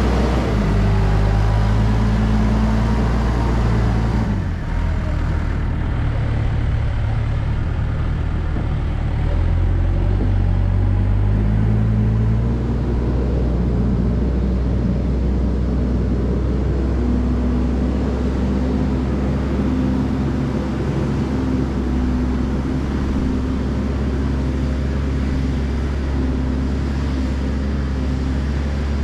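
JCB backhoe loader's diesel engine running steadily under work, its revs stepping up and down several times, with a brief drop about four and a half seconds in.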